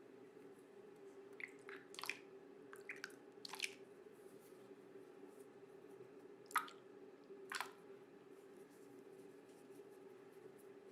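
Faint soft squishes and taps of toys being handled, in a short cluster early on and twice more later, over a faint steady hum.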